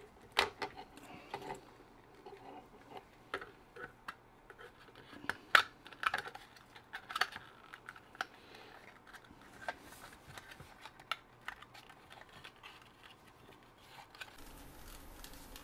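Irregular light clicks and taps from hand work on small parts while wires are soldered at a workbench, a few louder clicks standing out over a quiet room.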